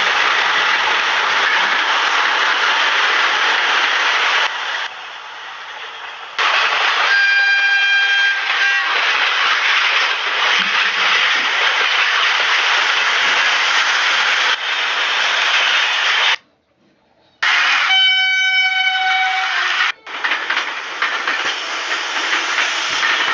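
Indian Railways WAP-7 electric locomotive's air horn sounding two blasts of about two seconds each, one about seven seconds in and one about eighteen seconds in, over loud, steady rushing noise from the moving train. The sound drops away for about a second just before the second blast.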